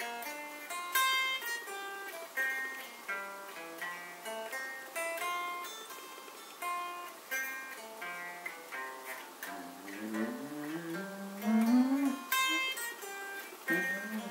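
Electric guitar played slowly, picking an arpeggio exercise one note at a time. About two-thirds of the way through, a run of notes slides upward in pitch.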